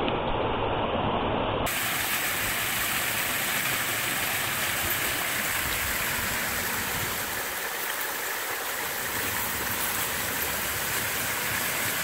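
Waterfall: thin ribbons of water pouring down a mossy rock face into a pool, a steady rush of falling and splashing water. About two seconds in it turns brighter and hissier.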